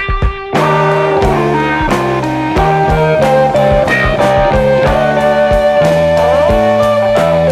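1972 prog rock instrumental with electric guitar, bass and drums; the band drops out briefly near the start, then comes back in with drum hits under held guitar notes.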